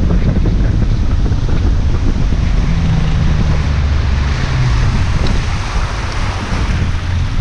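Bass boat running across a lake at speed: heavy wind buffeting the microphone over the steady hum of the outboard engine and water rushing along the hull.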